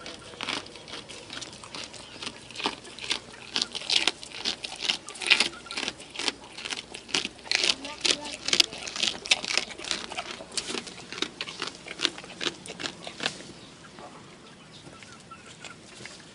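A goat chewing a fish, with rapid, irregular wet crunches and crackles as it bites through it; the chewing thins out and goes quieter near the end.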